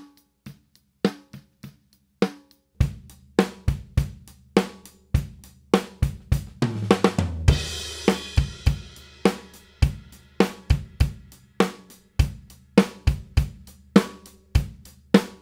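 Gretsch Renown drum kit (22" kick, maple snare, Paiste cymbals) played in a steady groove, recorded dry through an inside-kick mic, a snare-top mic, an overhead and a ribbon mic in front of the kit. A few sparse hits come first, then the kick drum joins the beat about three seconds in. About seven seconds in, a fill runs down in pitch and ends on a crash cymbal that rings out while the groove carries on.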